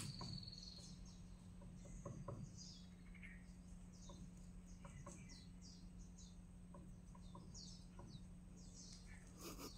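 Near silence with faint bird chirps, short high falling calls repeating irregularly, over a low steady hum and a few faint ticks.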